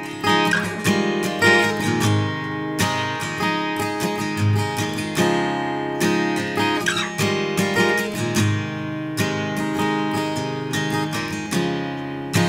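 Strummed acoustic guitar playing the instrumental intro of a pop song, with no vocals.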